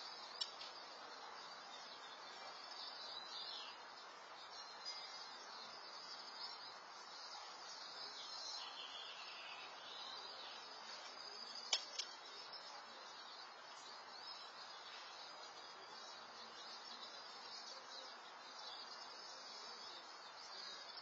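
Faint outdoor background picked up by a Nest security camera's microphone: an even hiss with scattered high chirps, and two sharp clicks, one just after the start and a louder one about halfway through.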